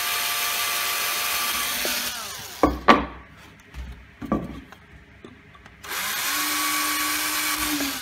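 Cordless drill boring a hole through an MDF disc: the motor runs steadily for about two seconds and winds down. A few knocks follow as the discs are handled, then the drill runs steadily again through the second disc for about two seconds before winding down near the end.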